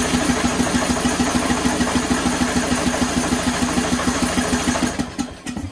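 Craftsman LT1000 riding mower's electric starter cranking the engine in a steady, even rhythm without it firing or catching, then stopping near the end. It is a crank-but-no-start, with fuel reaching the engine.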